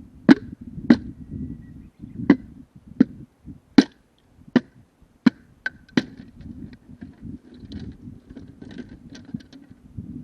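Bamboo culm cracking as it is split on a six-way bamboo splitter: about eight sharp cracks in the first six seconds, then fainter crackling.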